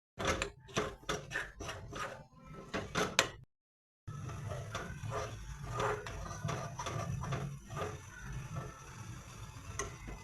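Kitchen utensils knocking and scraping against cookware: a quick run of about a dozen sharp knocks, then, after a short cut, a steady low hum with scattered softer clinks and scrapes.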